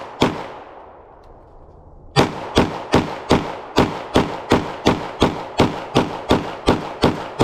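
9mm pistol firing: one shot at the start, then after about two seconds a rapid string of about fourteen shots at roughly three a second, each with a ringing echo tail.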